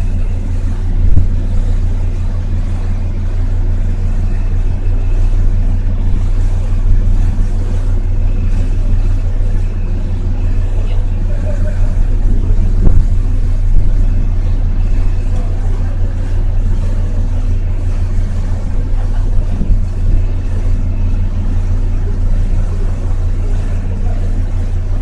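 A passenger ferry's engines running steadily under way, a deep, even drone heard from the open deck.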